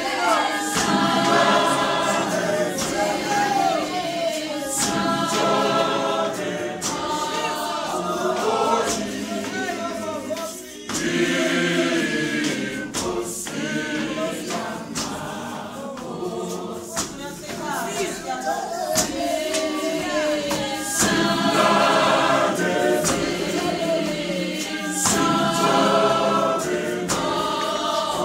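Church congregation singing a hymn together without instruments, many voices in unison, with regular sharp beats keeping time.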